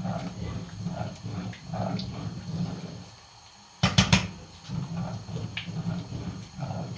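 A spoon stirring a thick, simmering pot of wheat harees, with uneven bubbling and stirring sounds, then a quick burst of three or four knocks about four seconds in as the spoon is tapped against the steel pot.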